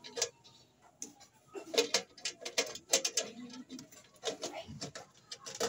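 A quick run of small clicks and taps from fingers working a thin wire onto a metal terminal inside an opened rice cooker, bunched together between about one and a half and three and a half seconds in.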